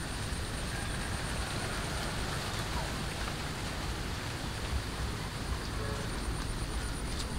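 Steady outdoor background noise, with a faint short mew or two from a young kitten.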